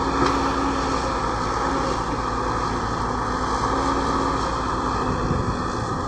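Caterpillar 120B excavator's diesel engine running steadily at working speed, with a brief knock just after the start.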